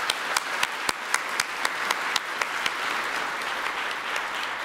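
Audience applauding, with one person's sharp claps close to the microphone at about four a second. The close claps stop a little past halfway and the applause fades out near the end.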